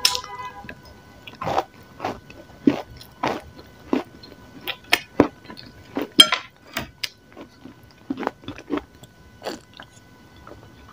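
Close-up crunching bites and chewing of a dry, grey, crumbly chunk: a string of sharp crunches, roughly one every half second and irregular, the loudest about six seconds in.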